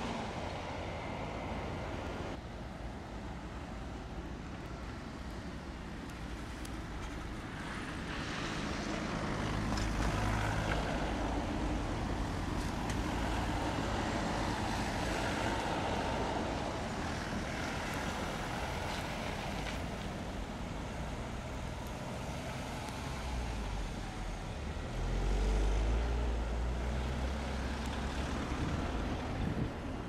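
City bus and cars driving through deep snow: steady engine rumble and tyres on snow. The low rumble swells louder about eight seconds in and again near twenty-five seconds as vehicles pass close.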